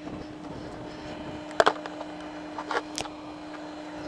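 A plastic deck hatch being handled and set into its cut opening: a few sharp clicks and knocks over a steady faint hum.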